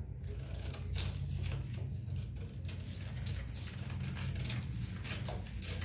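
Scissors cutting through folded newspaper in a run of irregular snips, with the paper rustling, over a steady low hum.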